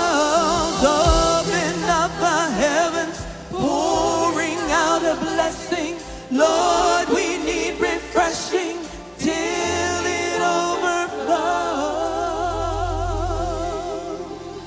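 Live gospel-style worship music: a singer sings ornamented, wavering vocal runs in short phrases with heavy vibrato over band accompaniment, with a low sustained bass note coming in about two-thirds of the way through.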